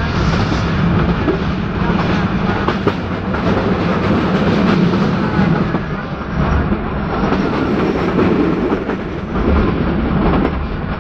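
Nilgiri Mountain Railway (Ooty toy train) carriage running along the track, heard from on board: steady noise of the wheels on the rails.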